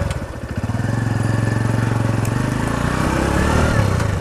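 Motorcycle engine running just after being started, a steady fast pulse, its pitch rising and falling in the last second or so as it is revved.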